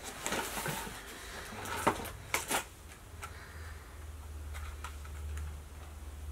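Cardboard box flaps and packaging being handled: a few short crinkles and taps in the first couple of seconds, then quieter with a low steady hum.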